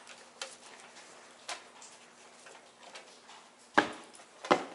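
A wolfdog's claws and paws clicking and knocking on the wooden planks of a picnic table: a few faint clicks, then two loud sharp knocks near the end.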